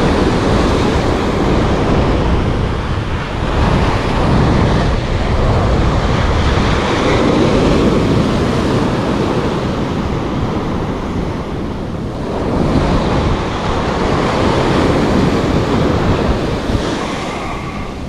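Surf breaking and washing up a sandy beach, with wind buffeting the microphone; the rush swells and eases as the waves come in.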